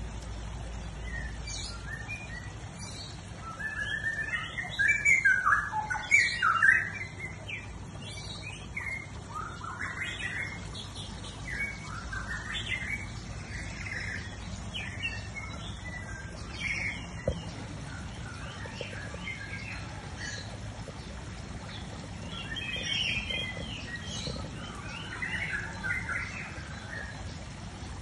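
Caged songbird singing in quick runs of chirps and short squawky notes. It is loudest a few seconds in and again near the end.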